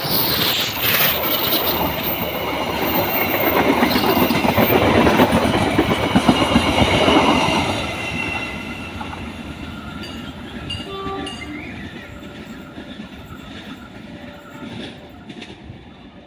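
Passenger train carriages rolling past with wheels clattering on the rails and a thin high squeal. It is loud for about the first eight seconds, then fades steadily as the train moves away.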